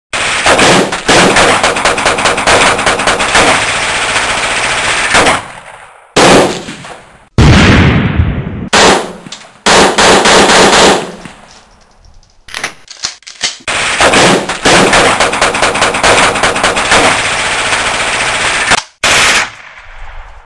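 Dubbed-in machine-gun fire sound effects: long rapid bursts broken by short gaps, with a heavier blast with a deep rumble about seven and a half seconds in that fades away.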